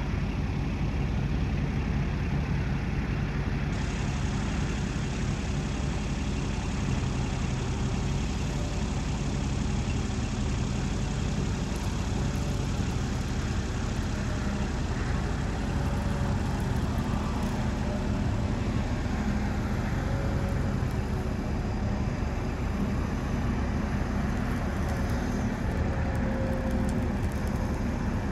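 Diesel engine of a 2001 Kobelco SK250LC long-reach excavator running steadily while the hydraulics reach the boom and arm out, with a faint hum that shifts in pitch as they move.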